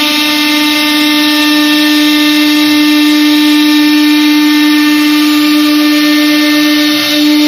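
A 1325 CNC router's spindle motor running at speed with a steady high whine while its cutter routes grooves in an MDF door panel; the whine dips briefly about seven seconds in.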